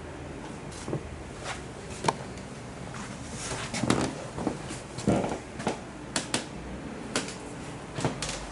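Irregular knocks and clicks of hard objects being handled, about a dozen scattered through, with a small cluster in the middle.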